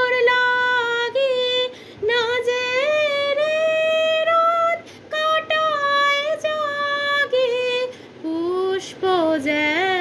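A woman singing a Bengali Rabindra Sangeet song solo, in long held notes with gliding ornaments, broken by short pauses for breath.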